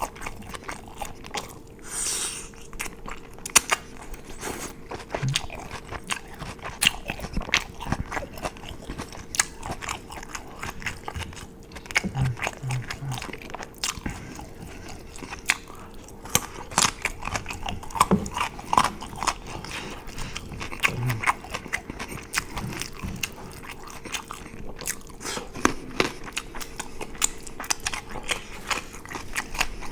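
Close-miked chewing of a burger: wet mouth clicks and smacks with some crunching, bites coming irregularly throughout. A faint steady hum sits underneath.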